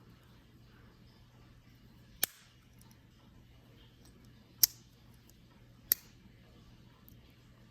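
Three sharp metallic clicks, a second or two apart, the middle one loudest: the tools of a Victorinox Swiss Champ pocket knife snapping open and shut on their backsprings.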